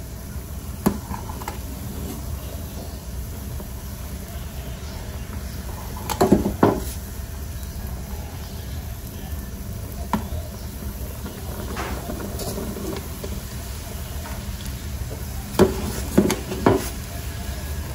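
A pot of crab broth simmering on the stove with a steady low rush, while the floating crab curds are gently skimmed off. A ladle clinks against the pot a few times: a handful of light knocks around the middle and another cluster near the end.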